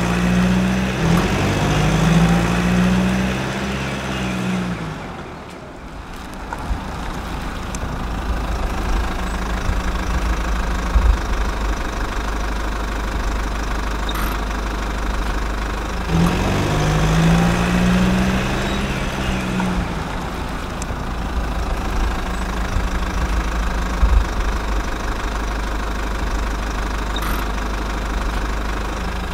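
Heavy vehicle engine idling with a steady low hum. Twice it revs up, its pitch stepping up and down for a few seconds, and two sharp knocks sound in between.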